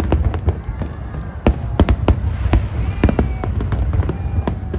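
Aerial fireworks display: a rapid, irregular string of sharp bangs, about a dozen, over a continuous low rumble of distant bursts and echoes.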